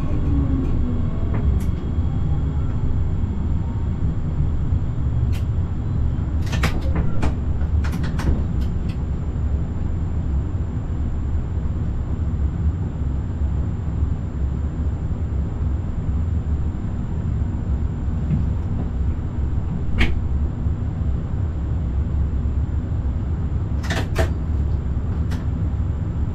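Forchbahn electric train running on the rails, a steady low rumble, with the motor whine falling in pitch at the very start. Sharp clicks and knocks from the track come in a cluster about a quarter of the way in, once near twenty seconds and twice near the end.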